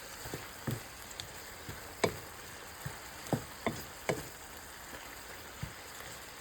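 Spinach sautéing in a frying pan over medium heat: a steady sizzling hiss with occasional sharp clicks and knocks, the loudest about two seconds in.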